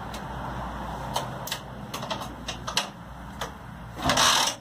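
Sachs 175 cc two-stroke motorcycle engine running at idle: a steady low rumble with irregular sharp ticks or pops, and a short, louder rush of noise about four seconds in.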